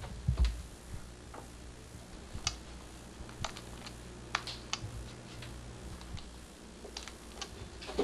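Scattered light clicks and taps at an uneven pace, with a dull low thump about half a second in.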